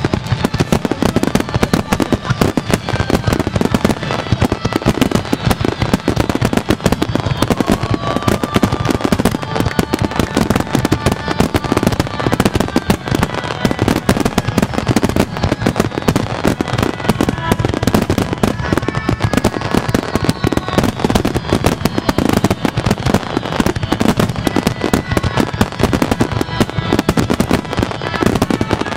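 Fireworks display of a Niagara Falls cascade and wide starmine: a dense, unbroken crackling and popping of bursting shells and sparks, with faint high whistles gliding down now and then.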